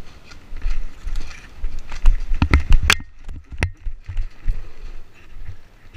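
Footsteps and brush rustling as airsoft players move through dry scrub, with low uneven rumbling on the microphone. There is a quick cluster of sharp clacks about halfway through.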